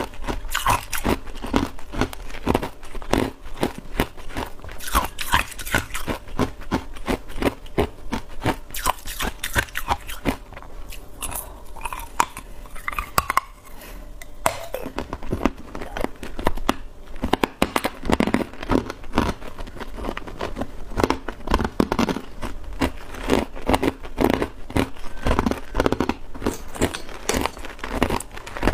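A person biting and chewing hard ice blocks close to the microphone, with dense, sharp cracking crunches. The chewing eases off for a few seconds in the middle, then picks up again.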